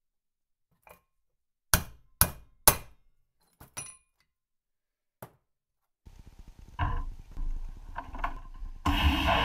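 Three sharp hammer blows on a drift, tapping a wheel bearing out of a motorcycle drum-brake hub, followed by a few lighter metallic clinks. Then a vapor blaster's low hum starts, with a few knocks, and about a second before the end the blast gun starts spraying loudly and steadily.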